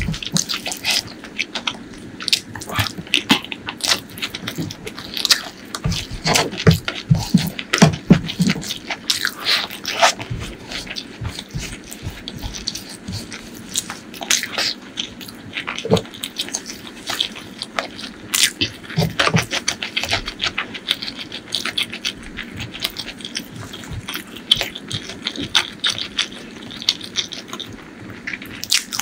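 Close-miked eating: rice and fish curry eaten by hand, with wet chewing, lip smacking and many sharp, irregular mouth clicks, and some crunching.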